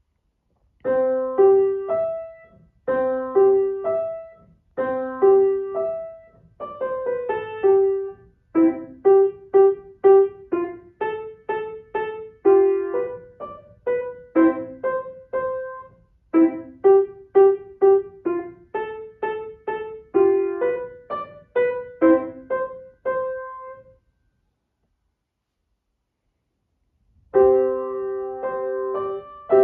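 Piano playing a short piece in brisk struck notes and short phrases, which ends about 24 seconds in. After about three seconds of silence, a second piece begins with held chords.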